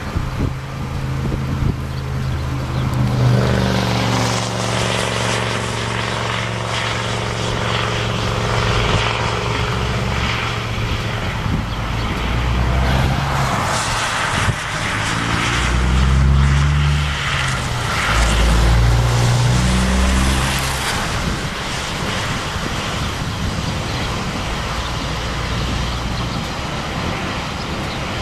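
Traffic passing on a rain-wet highway: tyres hissing on the wet pavement under the drone of car and truck engines. One engine's tone falls in pitch as it goes by a few seconds in, and heavier engine drone is loudest a little past the middle.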